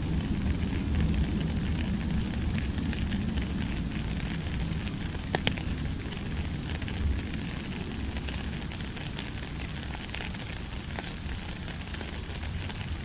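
Steady rain falling: a dense hiss thick with small ticks of drops, over a low rumble. One sharper tap stands out about five seconds in.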